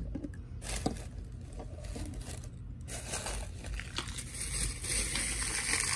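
Tissue paper and packaging rustling and crinkling as items are unpacked by hand, with a couple of light knocks. The rustle grows louder and hissier about halfway through.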